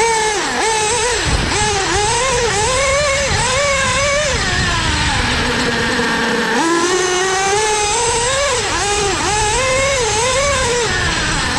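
Modified LRP .32X Spec 4 nitro engine with a Novarossi tuned pipe, heard from a camera on the truggy itself, revving hard and rising and falling about twice a second under throttle. About halfway through it settles to a lower steady note for a second or so before climbing again.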